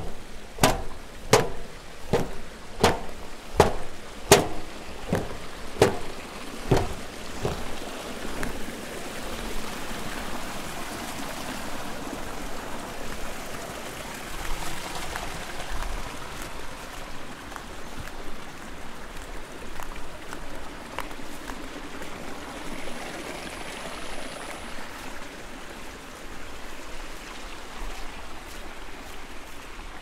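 Footsteps coming down a metal staircase, a clang with a brief ring on each step, about one every 0.7 s, stopping about seven seconds in. After that, a steady trickle of running water from the flooded rice-terrace paddies and their channels.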